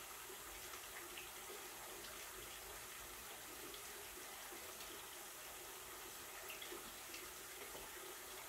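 Faint steady hiss of a kitchen tap running, with a few light clicks.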